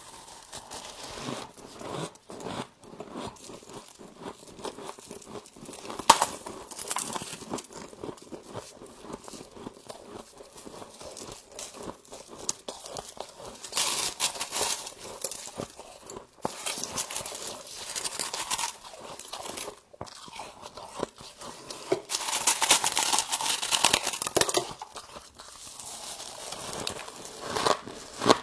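Close-up crunching and chewing of frost in the mouth: dense crackly bites with louder crunchy bursts every few seconds.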